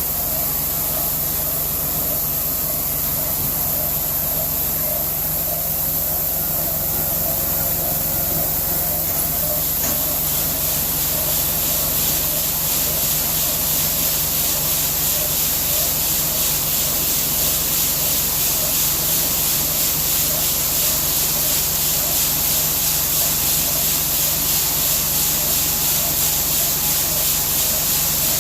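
Steady machinery hum, with the rushing hiss of shelled corn pouring from the grain wagon into the receiving pit. The pour grows louder and brighter about ten seconds in.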